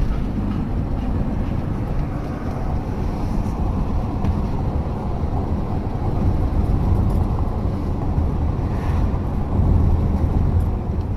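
Steady low road and engine noise heard inside a moving car's cabin.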